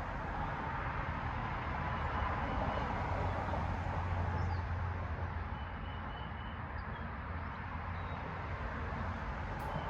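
Hampton Bay Princeton II 52-inch ceiling fan running steadily: a low motor hum under an even rush of air from the blades.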